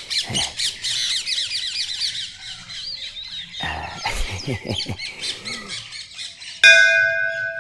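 Many small birds chirping busily for the first three seconds or so. Near the end a temple bell is struck once and rings on with several steady tones, slowly fading.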